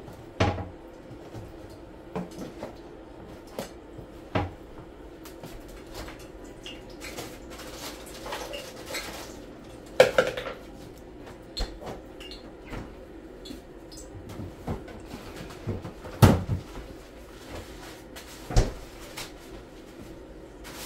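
Kitchen clatter: scattered knocks and clinks of dishes, a bowl and cupboard and refrigerator doors being handled, the loudest about halfway through and again about three quarters through, over a faint steady low hum.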